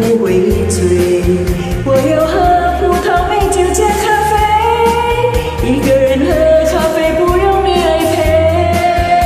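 A woman singing a Mandarin pop song over a karaoke backing track with a steady pulsing bass.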